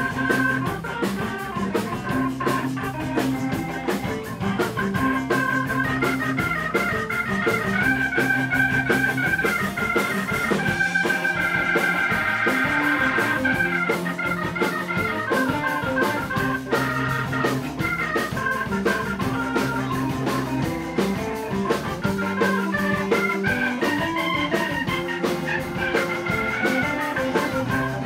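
Live rock-and-roll band playing an instrumental break: an electronic keyboard with an organ sound takes the solo, runs of notes with a fast repeated high note about halfway through, over a steady drum beat and a bass line.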